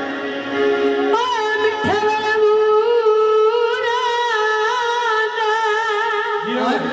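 A male singer holds one long wavering note for about five seconds with music behind it, starting about a second in and breaking off just before the end.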